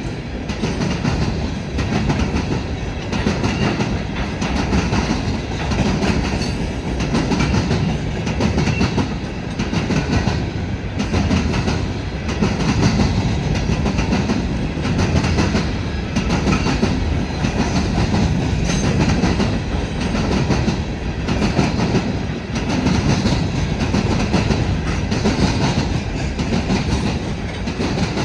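Empty cars of a freight unit train rolling past. Their steel wheels clatter over the rail joints in a steady rhythm that swells and fades about every second and a half.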